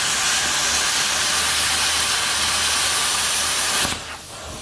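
A metalworking tool running with a loud, steady hiss over a low hum. It stops sharply about four seconds in, leaving a fainter hiss that fades away.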